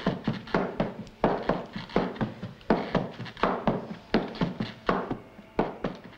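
Tap dancing: a quick, uneven series of sharp taps and stamps of shoes on the floor, several a second.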